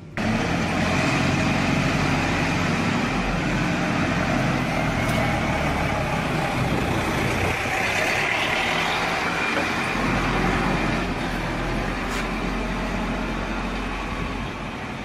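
Steady heavy-machinery noise in a large industrial workshop: a low rumble under a broad hiss, with no distinct events.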